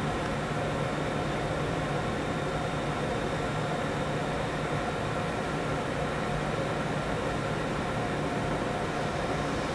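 Steady electric hum and whine with a low rumble underneath, from an ÖBB Railjet train hauled by a Class 1116 Taurus electric locomotive running slowly into the station; it holds level without rising or falling in pitch.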